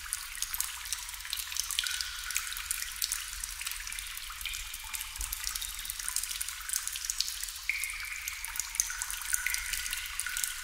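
Water dripping into water: a steady, irregular patter of many small drops, with now and then a short pitched plink.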